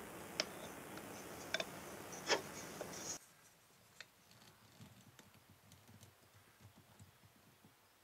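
A few sharp clicks as the fork and small hand tools are handled, then, about three seconds in, faint, irregular scratching and ticking of a flat steel blade worked against the repair on a red lacquered table fork.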